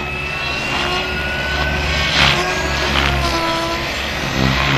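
Turbine sound module of a scale Lama RC helicopter, giving a jet-turbine whine that slowly rises in pitch over a low rumble, with two whooshing bursts about two and three seconds in.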